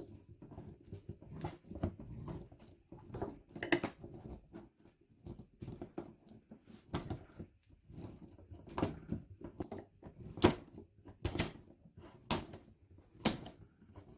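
Oil filter cutter being cranked around a steel spin-on oil filter canister: irregular scraping and clicking, turning into sharper clicks about once a second in the second half. The can is giving a tough time getting open.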